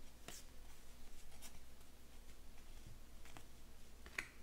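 Faint swishes of 2020 Panini Chronicles baseball cards sliding off a stack as they are flipped through by hand, a few soft card-on-card strokes spread out.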